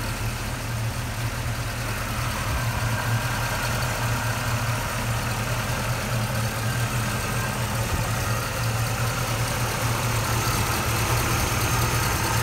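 The 6.6-litre Oldsmobile 403 V8 of a 1979 Trans Am idling steadily with the hood open.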